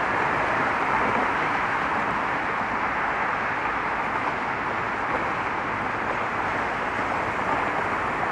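Steady hiss of road traffic, an unbroken wash of tyre and engine noise with no single vehicle standing out.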